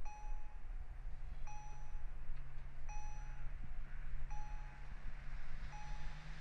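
Level crossing warning bell ringing, a short electronic ding about every one and a half seconds, five times: the crossing is closed for an approaching train. Under it is a low steady drone, with a rushing sound growing near the end as the SA133 diesel railbus draws closer.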